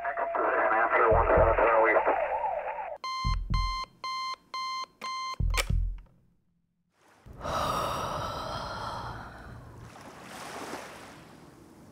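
Digital clock radio alarm beeping: about four short, evenly spaced electronic beeps, about two a second, cut off near the middle by a sharp click and thump as it is silenced. Before them radio sound plays; after a brief silence comes a hissing stretch and then faint lapping surf.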